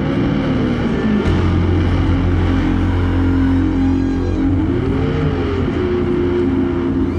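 Electric bass guitar solo played through heavy distortion and effects, live in concert: a low note held from about a second in, with slow pitch glides swooping up and back down near the start and again about five seconds in, which gives it a revving-engine sound.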